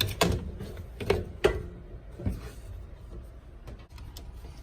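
Dryer timer switch being handled and fitted into the control panel: about five sharp knocks and clunks in the first couple of seconds, then only faint rustling.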